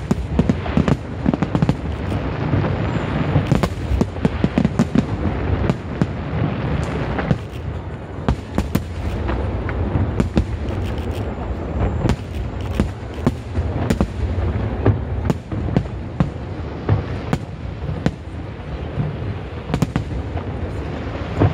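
Aerial fireworks display: shells bursting one after another in a dense, continuous barrage of booms and sharp cracks, with a low rumble underneath.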